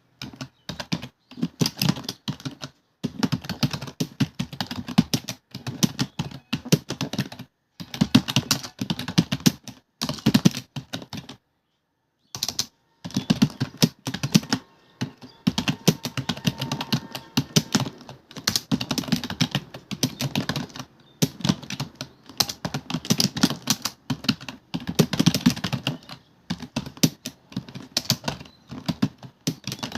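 Fast typing on a computer keyboard: dense runs of key clicks broken by brief pauses, the longest lasting about a second, a little before the middle.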